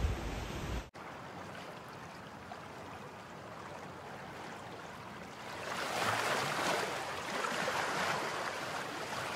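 Ocean surf breaking and washing over rocks at the foot of a cliff, a steady rush that swells louder about six seconds in. For the first second wind rumbles on the microphone, then cuts off abruptly.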